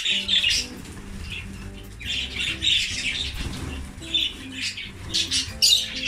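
A flock of budgerigars chirping busily, many quick overlapping calls, with background music underneath.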